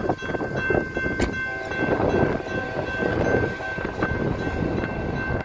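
Freight train running through a grade crossing: a continuous rumble and rattle of the cars, with a steady high ringing tone carried over it.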